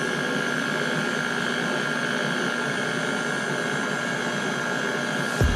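Electric mixer running steadily at a constant speed, beating thick pound-cake batter, with a steady high whine over its motor noise. A low thump comes right at the end.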